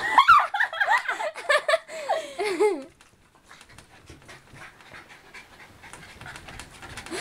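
Two small dogs playing and wrestling on a bed. A high, wavering squealing sound fills the first three seconds, then quieter panting and scuffling on the bedding.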